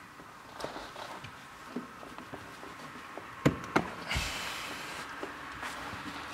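Hands working plastic trim clips and wiring at a car's door sill: scattered small plastic clicks, two sharp clicks about three and a half seconds in, then a short rustle.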